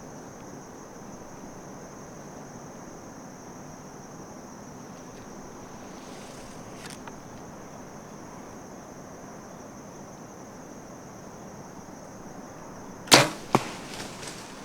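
A steady high insect trill, then near the end a hunting bow is shot: one sharp loud crack, followed about half a second later by a second, weaker crack.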